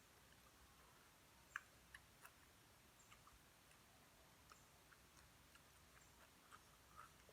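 Near silence with faint, irregular small mouth clicks and smacks of someone eating; the loudest comes about a second and a half in.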